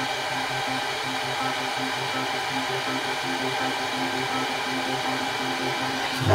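Hot air rework gun blowing steadily onto a laptop GPU die, heating it to 150 °C: a steady hiss over a low hum that pulses a few times a second. A knock comes near the end.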